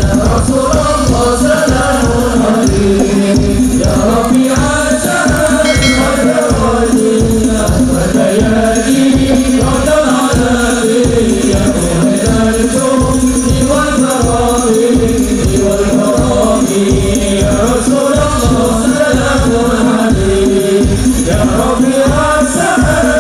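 Hadroh ensemble performing sholawat: rebana frame drums beat a fast, steady rhythm under a sung melody over a steady held drone.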